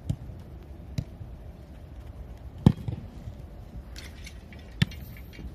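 Footballs being kicked: four sharp thuds a second or two apart, the third the loudest, over a steady low rumble.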